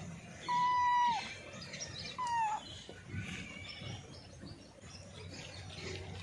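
Kitten meowing twice: a held, even-pitched meow about half a second in that drops at its end, then a shorter, falling meow about two seconds in.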